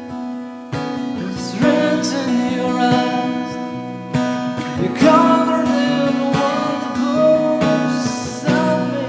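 Acoustic-electric guitar strummed in steady chords, recorded through a BM800 condenser microphone and V8 sound card. From about a second and a half in, a voice sings a melody over it.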